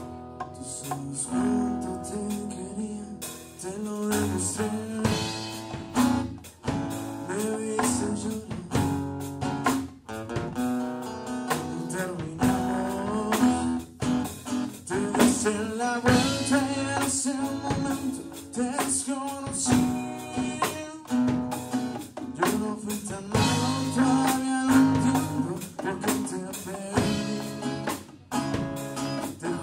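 A small band playing a song: a man singing with an acoustic guitar, backed by a drum kit and bongos.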